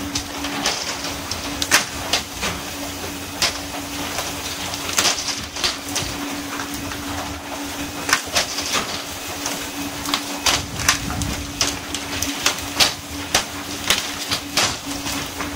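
Working deck of a pole-and-line fishing boat: a steady hiss of water spray over the sea beside the hull and a steady engine hum, broken by irregular sharp slaps and knocks, one or two a second, as hooked fish land on the deck and rods knock against the rail.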